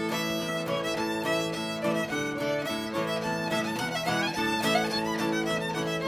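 Old-time Appalachian fiddle tune: a quick, busy melody over steady held drone notes.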